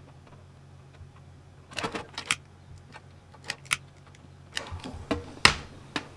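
Irregular clicks and light clatter of an RC car's electronic speed controller and its stiff wires being handled over a metal tin tray, ending with a sharper knock as the ESC is set down on the tin, a little before the end.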